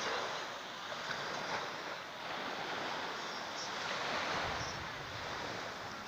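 Small Black Sea waves breaking and washing up on a sandy shore: a steady rush that swells a little near the start and again around four seconds in. Some wind buffets the microphone, with a low rumble about four and a half seconds in.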